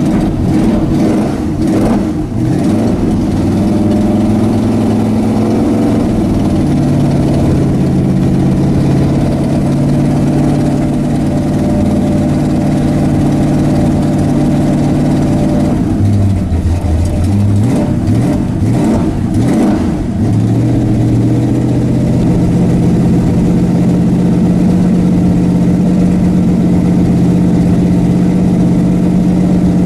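Ford Ranger drag truck's engine running cold just after a hard start below freezing. The idle drops in the first couple of seconds, sags and wavers a little past halfway, then settles into a steady idle.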